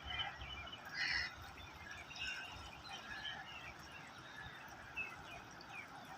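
Scattered short animal calls, most likely birds, over a low rumble.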